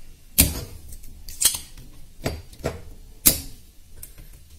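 Spring-loaded desoldering pump snapping as it is worked over a soldering iron to draw solder off the pins of a faulty regulator transistor: about five sharp clicks, the loudest about half a second in and a little after three seconds.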